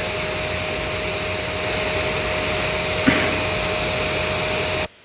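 Steady whooshing noise with a thin steady hum, a single click about three seconds in, cutting off suddenly near the end.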